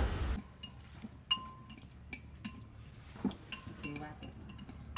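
Chopsticks tapping and clinking against a clay pot while stirring, in scattered short knocks, a couple of which ring briefly.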